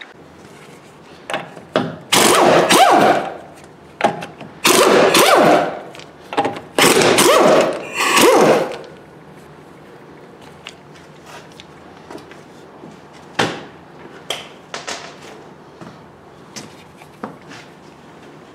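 Impact wrench undoing wheel bolts: three loud bursts of about one to two seconds each, one for each of the wheel's three bolts, followed by scattered light clicks and knocks as the bolts and wheel are handled.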